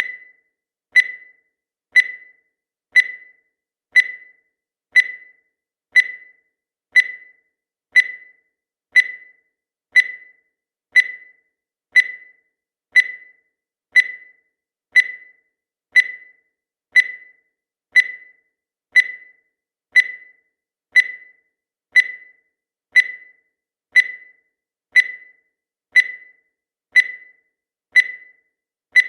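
Countdown timer sound effect: a short, high electronic beep once every second, each fading away quickly, with silence between beeps.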